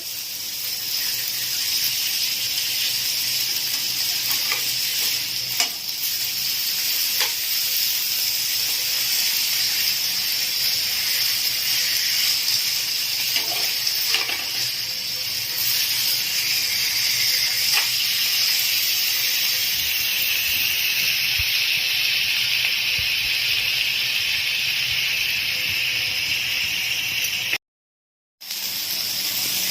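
Chicken breast pieces sizzling as they fry in olive oil in a pan over a medium flame, a steady hiss with a few light pops. The sound cuts out for about a second near the end.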